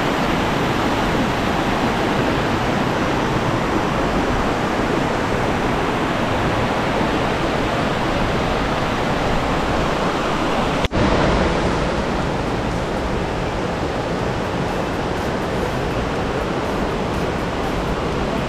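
Steady rush of water from a tall waterfall and its rocky river, with a momentary break about eleven seconds in.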